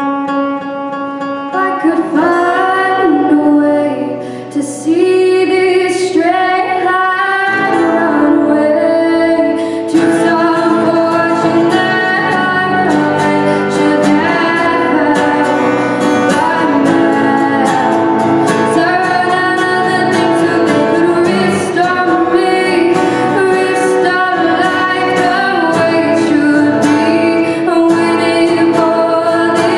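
Live cover of a pop-rock song: strummed guitar with a lead singer. The voice comes in about two seconds in, and the accompaniment grows fuller about seven seconds in.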